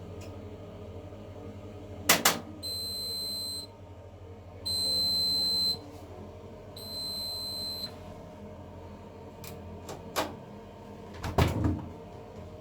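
Washing machine's electronic end-of-cycle signal: three long high beeps, each about a second, with short gaps between. A sharp knock comes just before the beeps, and a few more knocks and thumps near the end, over a low steady hum.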